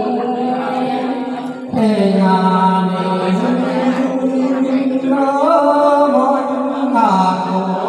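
Unaccompanied Mường folk singing (hát Mường) into a microphone, one voice at a time, with long, held, wavering notes. A woman's voice gives way to a man's, which takes up the song a couple of seconds in, a little louder.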